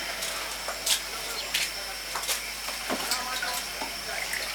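A spoon stirring soup in a cooking pot, knocking or scraping against the pot about every two-thirds of a second, over a steady hiss.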